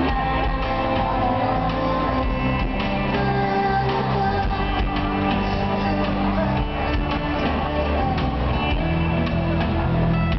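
Live band music played through an arena sound system, with electric guitar and bass over a steady beat.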